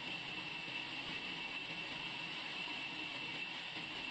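Large sawmill band saw running as its blade rips lengthwise through a log: a steady, unchanging high whine over a hiss.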